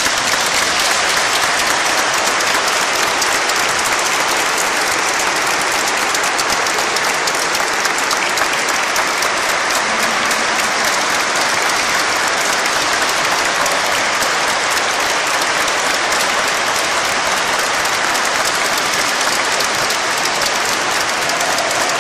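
Audience in a church applauding: a long, steady round of dense clapping.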